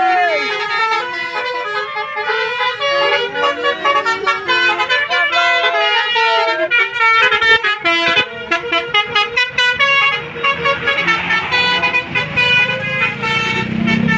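Tour bus 'telolet basuri' multi-trumpet musical horn playing a fast tune, its pitched notes stepping up and down every fraction of a second. A low rumble joins near the end.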